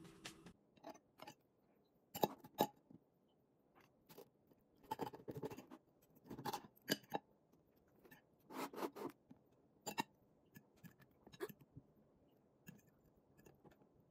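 A fork and knife tapping and scraping on a ceramic plate while cutting through toast topped with avocado and scrambled egg, in short separate bursts a second or two apart, with sharp clicks between them.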